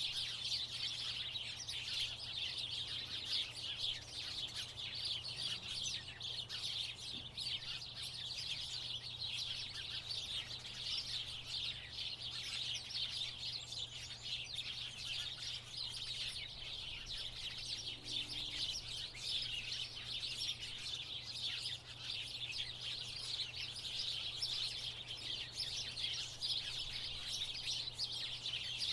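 A flock of house sparrows chirping continuously, many short overlapping chirps at once, over a faint steady low hum.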